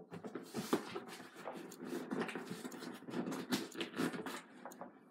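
Cardboard shipping box being worked open by hand: an irregular run of scratching, scraping and small tearing clicks as the flaps and their tape are picked at and pulled.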